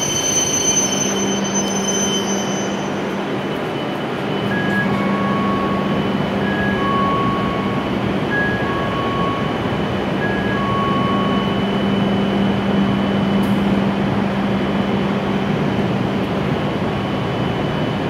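W7 series Shinkansen train braking to a stop: its high whine fades out within the first few seconds, leaving the steady hum of the standing train. Between about four and eleven seconds in, a two-note chime repeats, alternating high and low about once a second.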